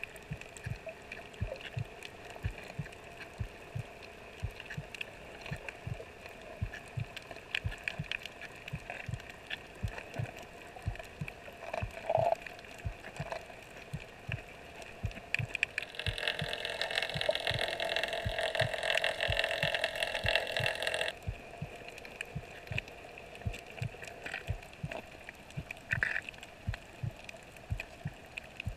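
Underwater sound through a waterproof camera housing: frequent irregular low knocks under a constant crackling hiss, with a louder rushing noise for about five seconds in the middle.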